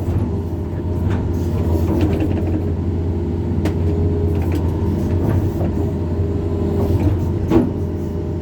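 Hydraulic excavator's diesel engine running steadily, with a few sharp knocks now and then.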